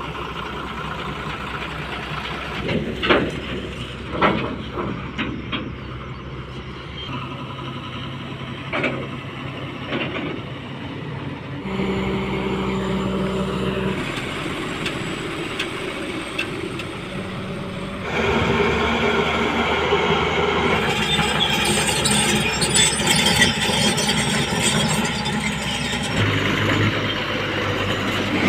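Diesel engines of heavy construction machinery running, with a few sharp metal clanks in the first ten seconds. The sound changes abruptly several times, getting louder about 18 seconds in.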